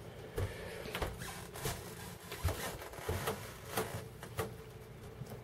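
Sony MHC-ZX30AV's CD changer mechanism cycling through its disc trays, a quiet string of soft mechanical clicks about every half second or so, driven by makeshift elastic bands fitted in place of its worn belts.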